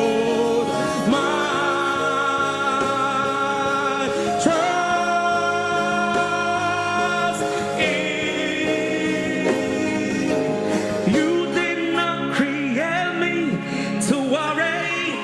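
Gospel worship song: voices singing long, held notes over instrumental accompaniment.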